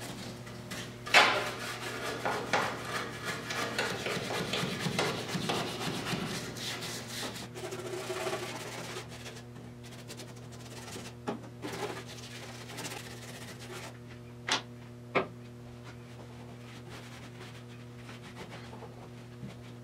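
A brush wet with lacquer thinner scrubbing bare steel car body panels, with quick scratchy strokes that are busiest in the first half and thin out later. There are a few sharp knocks, the loudest about a second in and two more a little past the middle, over a steady low hum.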